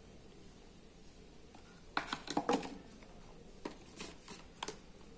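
Cardboard smartphone box and its contents being handled: a quick cluster of rustles and clicks about two seconds in, then a few scattered light clicks.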